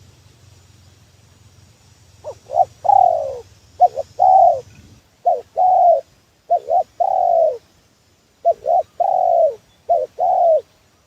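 Spotted dove cooing in about six phrases, starting about two seconds in. Each phrase is one or two quick short notes and then a longer falling coo, the lure call used to draw in wild spotted doves. A faint low hum underneath fades out about halfway through.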